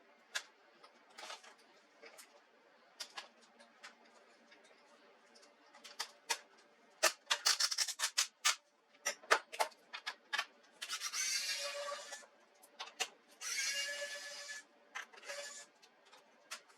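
Clicks and taps of plastic and small tools as an HP laptop's case is worked open. There are two longer scraping stretches about eleven and fourteen seconds in.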